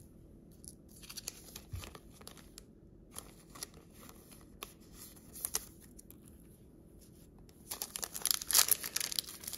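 Light plastic rustling and scratching as a trading card is slid into a clear plastic penny sleeve. Near the end comes louder crinkling of a foil card-pack wrapper being handled and opened.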